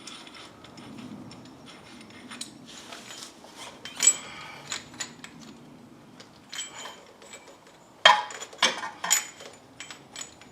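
Metal tools and brake parts clinking and clicking as they are handled, in scattered knocks with a louder cluster about eight seconds in.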